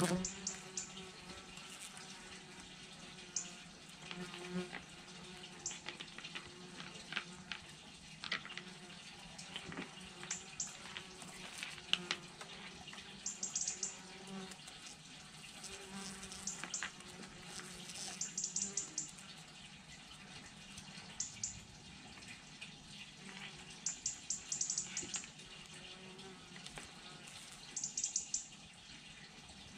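A cat crunching dry kibble from a plastic tray: irregular clusters of short, sharp crunches, over a low steady hum.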